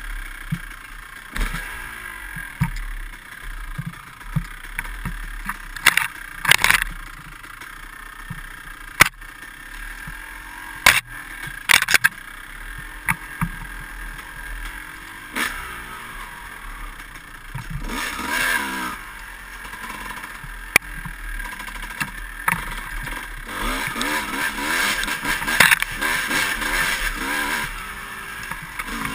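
Dirt bike engine being ridden hard, its revs rising and falling as the throttle is worked, with sharp knocks and clatters from the bike hitting bumps on rough ground. The engine runs louder and busier for the last few seconds.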